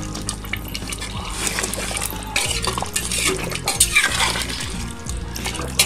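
A spoon stirring thick mutton curry in a metal pot, with wet scraping and a few clinks, busiest in the middle. Background music plays under it.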